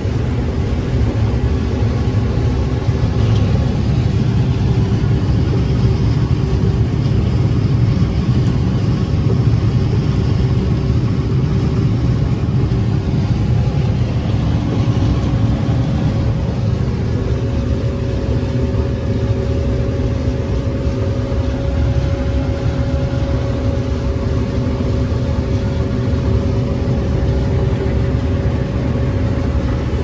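Combine harvester running steadily while harvesting corn, heard from inside the cab: a constant low engine and machinery rumble with a steady hum.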